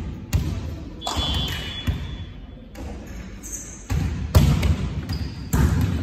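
A volleyball being hit and bouncing on the wooden sports-hall floor: about half a dozen sharp thuds, the loudest about four and a half seconds in, each ringing on in the large hall.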